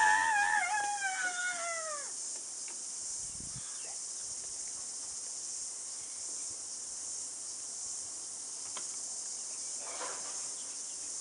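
A child's high, wavering scream that slides down in pitch and dies away about two seconds in, over a steady high hiss.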